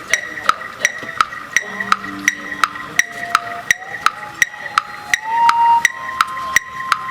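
Electronic metronome clicking steadily, about three beats a second, the pulse for a marching band rehearsal. From about two seconds in, band instruments join with long held notes that step upward in pitch, growing louder after about five seconds.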